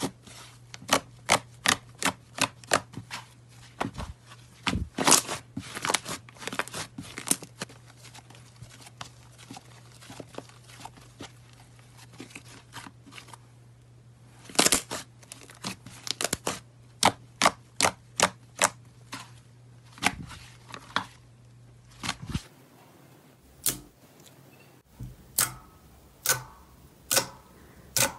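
Hands squishing and pressing thick slime, giving sharp, irregular clicks and pops of trapped air, several a second, over a low steady hum. About 22 s in the hum stops and the clicking goes on as fingers poke a softer slime in a glass dish.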